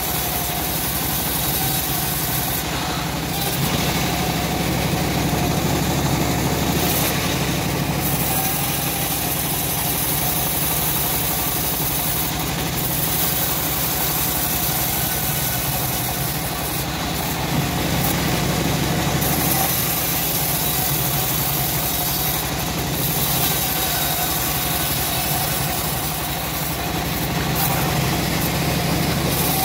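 Home-built bandsaw mill running steadily as its blade saws lengthwise through a short teak log, with the drive engine's constant drone underneath.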